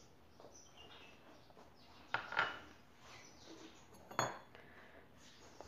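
Small glass dishes handled on a wooden tabletop: a soft clatter about two seconds in and a short, sharp clink about four seconds in.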